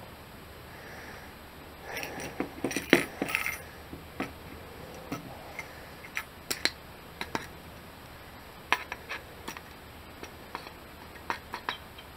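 Cutting pliers snipping down the steel staples that stick up from a wooden rat trap: a series of sharp metallic clicks and snips. A close cluster comes about two to three and a half seconds in, then single clicks about a second apart.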